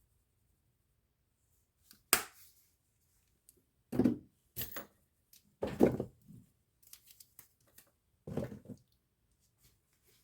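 Kitchen handling noises: a sharp click about two seconds in, then four short rustling, scraping strokes a second or two apart, with faint small ticks between.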